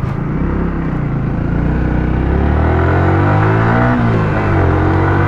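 Yamaha R15 V3's 155 cc single-cylinder engine accelerating under the rider, its pitch climbing steadily, dropping briefly about four seconds in at an upshift, then rising again, over a steady rush of wind and road noise.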